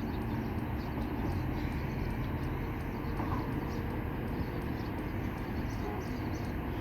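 Steady outdoor background noise by a river, with faint high ticking about twice a second.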